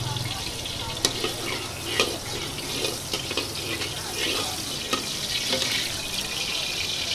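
Hot oil sizzling in a steel wok, with a metal ladle scraping and knocking against the wok; the sharpest knocks come about one and two seconds in and again near five seconds.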